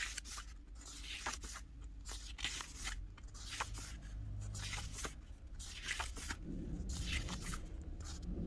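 Paper pages of a small photo book being turned and handled: a run of short paper swishes and rustles, about a dozen over the stretch.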